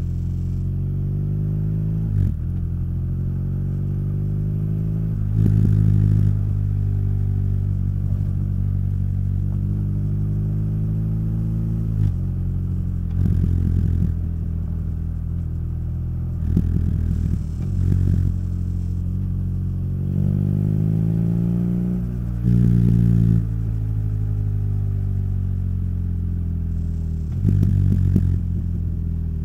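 BMW R nineT's boxer-twin engine through its Akrapovic exhaust, pulling under acceleration while being ridden: the pitch climbs, drops back at each gear change and climbs again, many times over. Short louder bursts come with several of the shifts.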